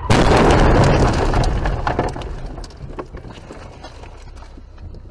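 A car crash heard from inside the dashcam car: a sudden loud impact of crunching and scraping that fades over about two seconds, followed by scattered knocks and rattles.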